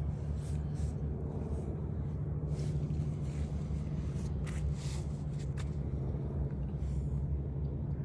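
Steady low rumble of outdoor background noise, with a few faint short clicks scattered through it.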